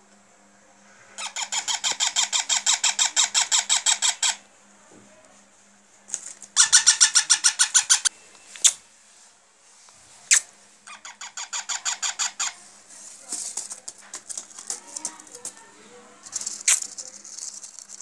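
Baby parakeets calling in three bouts of fast, evenly repeated chirps, with a few sharp clicks between them. These are the rapid begging calls of hungry chicks.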